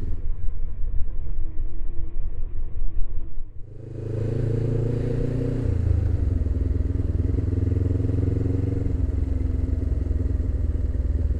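Suzuki GS500E air-cooled parallel-twin with a Leo Vince exhaust, heard from the riding motorcycle. The first few seconds are a muffled, uneven rumble. After a brief dip the engine note comes through clearly and holds steady, stepping down in pitch once about two seconds later.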